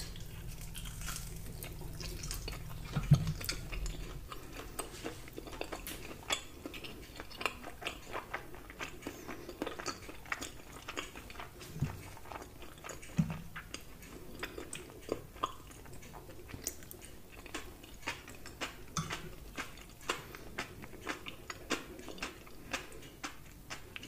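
Close-miked chewing and biting of grilled lamb rib meat, with wet mouth clicks and smacks throughout and occasional taps of a plastic fork on a china plate. One sharp, loud click comes about three seconds in, and a low hum fades out after about four seconds.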